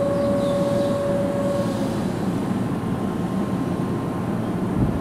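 Keihan 7200 series electric train standing at a station platform, its equipment giving a steady low rumble. A steady tone is held until about two seconds in, then fades.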